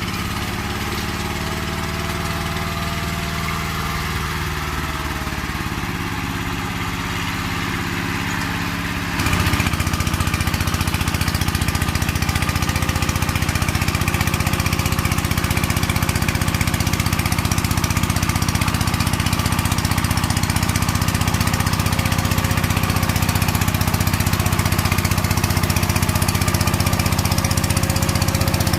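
Walk-behind power tiller's single-cylinder engine running steadily while tilling soil. About nine seconds in, it suddenly gets louder and stays at that level.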